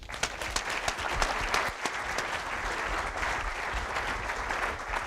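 Audience applauding, many hands clapping steadily at moderate level.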